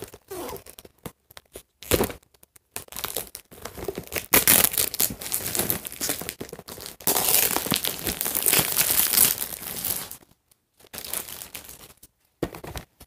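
Plastic wrap being torn and peeled off a toy box by hand, crinkling and crackling in uneven spells with short pauses, loudest in the middle.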